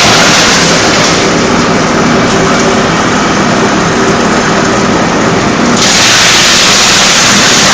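Drum wood chipper machine running, a loud, continuous mechanical noise over a low steady drone. From about a second in to nearly six seconds the hissing upper part of the sound drops back, then returns at full strength.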